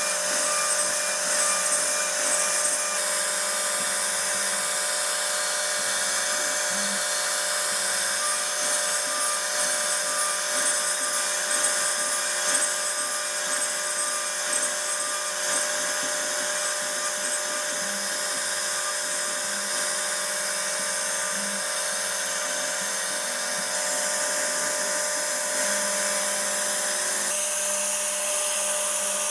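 CNC router spindle running at high speed with a steady whine while the bit carves a 2.5D relief design into wood. The tone shifts a little near the end.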